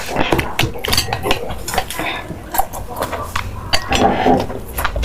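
Eating utensils clinking and clicking against a dish or bowl during a meal: many short, sharp, irregular clicks.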